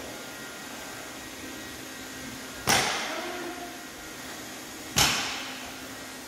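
Two loud, sharp knocks a little over two seconds apart, each echoing briefly, over a steady low background hum.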